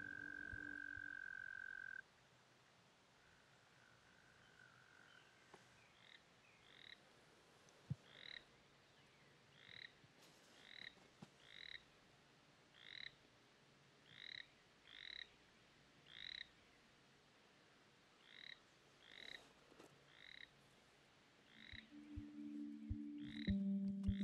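A frog calling in a faint, even series of short high peeps, about one a second, starting several seconds in. A held tone cuts off about two seconds in, and a low held chord swells up near the end.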